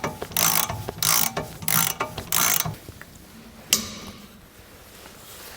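Ratchet wrench ratcheting in five quick back-strokes, about two a second, while the wheel hub retaining bolt is turned through its final angle. The strokes stop and a single sharp click follows about a second later.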